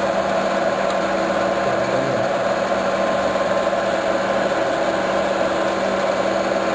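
Metal lathe running steadily with a constant hum while its tool bit cuts a groove into the spinning workpiece.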